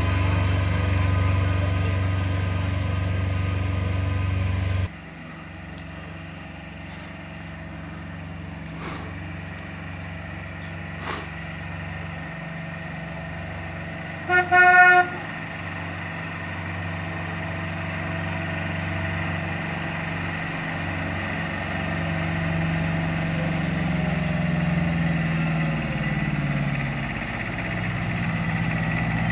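Engine of a trackless road tourist train running close by with a steady low hum, which drops away abruptly about five seconds in. Midway come two short horn toots from the train in the distance. Its engine then grows steadily louder as it approaches.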